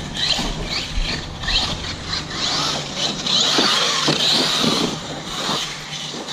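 Brushless electric motor of an Arrma Kraton 6S RC truck whining in short rising bursts as it is throttled repeatedly, with knocks from the truck's running gear.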